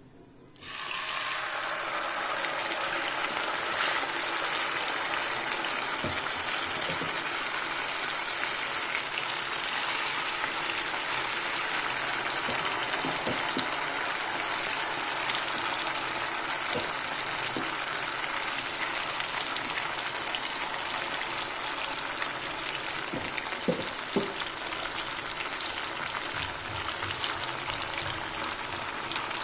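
Marinated chicken pieces sizzling as they are dropped into hot oil in a kadai. The frying hiss starts suddenly about half a second in and holds steady, with a few short knocks near the end.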